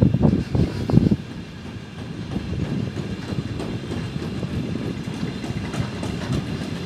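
Long freight train of double-deck car-carrier wagons rolling past as it pulls away after a stop, its wheels knocking over the rail joints. Several sharp knocks come in the first second, then a steadier rumble with lighter clicks.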